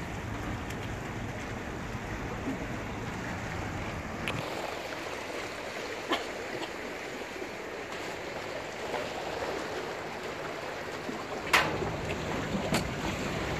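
Water rushing and splashing around a speedboat under way on a river, a steady wash of noise. A low rumble under it fades about four seconds in, and a few sharp knocks or splashes break through, the loudest near the end.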